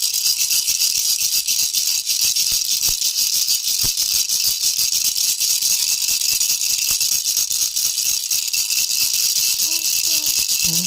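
Baby's toy rattle (jhunjhuna) shaken quickly and without pause, making a steady, high, dense rattle.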